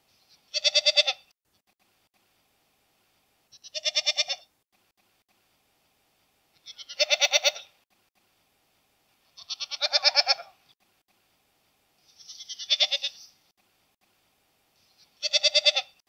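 Domestic goat bleating six times, about every three seconds, each bleat a short, wavering "mähh" lasting under a second.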